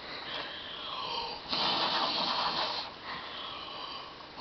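Heavy, breathy wheezing breaths, with one long exhale in the middle.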